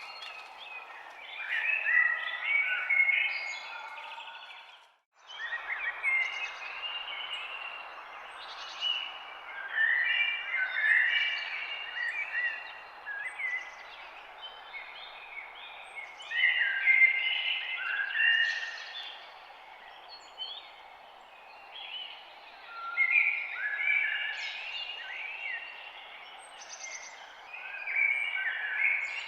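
Several birds chirping and singing in overlapping bursts over a steady background hiss. The sound cuts out completely for a moment about five seconds in, then resumes.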